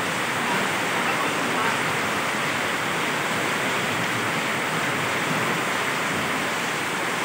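Heavy southwest-monsoon (habagat) rain pouring down in a steady, even hiss.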